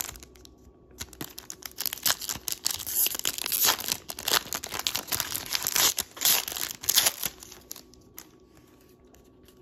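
A trading-card pack's crinkly wrapper being torn open and crumpled by hand, a dense run of crackling from about a second in that stops a couple of seconds before the end.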